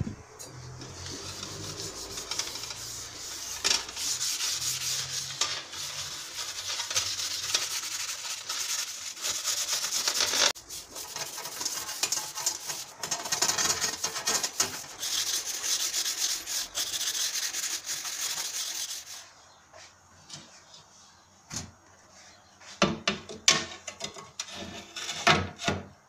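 Steel wool scourer scrubbing a wire oven rack, a steady high scratching that breaks off briefly about halfway. It stops a few seconds before the end, leaving only a few short knocks.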